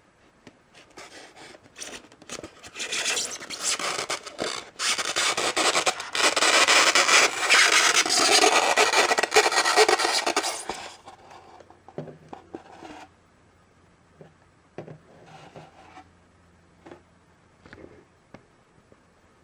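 Figurine being worked out of a tight polystyrene foam packaging insert: a loud rubbing scrape of foam against the figurine for about eight seconds, then a few light knocks.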